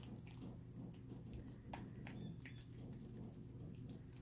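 Faint sticky clicks and squelches of wet homemade glue slime being squeezed and kneaded between bare hands, with a low steady hum underneath.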